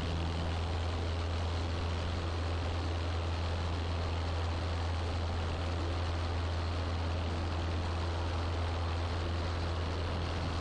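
Piper Archer PA-28-180's four-cylinder Lycoming engine and propeller droning steadily in cruise, heard from inside the cockpit as an even low hum.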